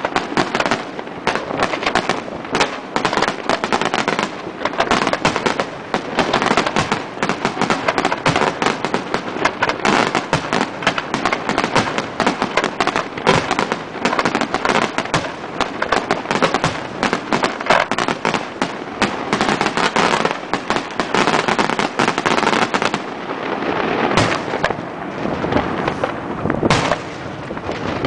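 Daytime aerial firework salute (an Italian 'diana'): a dense, continuous crackle of firecracker reports that grows sparser near the end, where separate bangs stand out.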